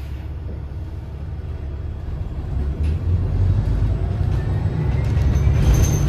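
A New Flyer XDE40 diesel-electric hybrid bus pulling away, heard from inside the cabin. The deep drivetrain rumble grows steadily louder, and a faint rising whine comes in from about four seconds in as the bus picks up speed.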